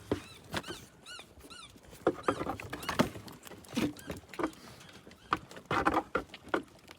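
Goat kids jostling around a nursing doe. A run of short high chirps fills the first couple of seconds, followed by irregular knocks and scuffling.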